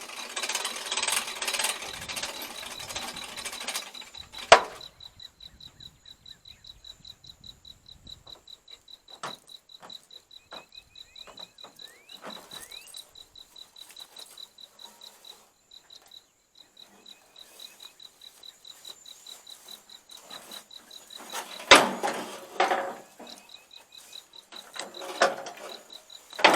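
Crickets chirping in a fast, even, high-pitched pulse throughout. A burst of rattling comes at the start, a sharp knock about four and a half seconds in, and louder clanks and rattles near the end.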